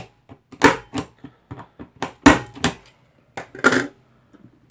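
Punch-down tool seating Cat6 wires into a keystone jack's insulation-displacement contacts, with about five loud, sharp snaps at irregular intervals and lighter clicks between them. The snaps are the tool's spring-loaded impact firing as each wire is pushed down and trimmed.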